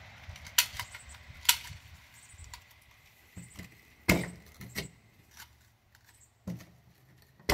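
A mud-fouled HK USP Compact .45 pistol being worked by hand: about half a dozen sharp metallic clicks and knocks, a second or so apart, as the slide, jammed with mud, is forced back, partly by pressing the muzzle down against a table.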